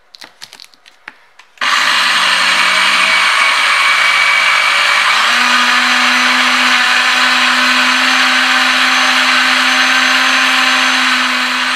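A few light clicks as the blender jar is seated on its base, then about a second and a half in the countertop blender's motor switches on and runs steadily, mixing powdered sugar with milk powder. Its low hum steps up in pitch a few seconds after starting.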